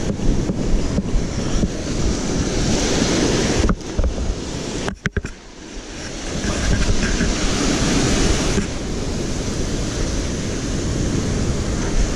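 Small surf breaking and washing up the sand close by, with wind buffeting the microphone. The sound drops out briefly twice, about 4 and 5 seconds in.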